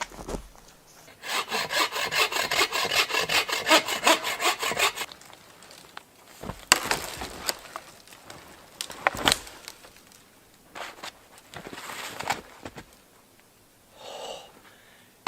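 Hand saw cutting into a dead fallen hardwood log with quick rhythmic strokes for about four seconds, then two sharp knocks and a shorter bout of sawing. The cut is testing the log, which turns out dry and sound.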